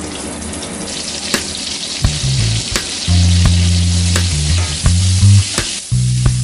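Onion rings sizzling in hot fat in a stainless steel pan. The sizzle starts as they drop in, and metal tongs tossing them click against the pan several times.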